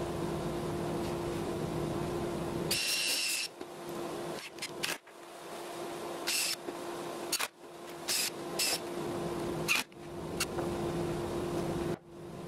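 Makita 18 V cordless drill driving screws into plywood in several short bursts of motor whine, each well under a second long, over a steady hum.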